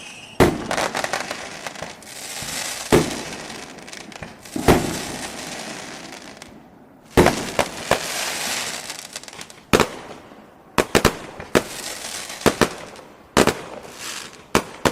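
Fireworks sound effect: sharp bangs each trailed by a fizzing crackle, a few seconds apart at first, then many quick pops in fast succession over the last few seconds.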